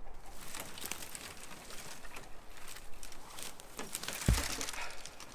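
Rustling and small crackles of twigs and brush, with one dull thump about four seconds in.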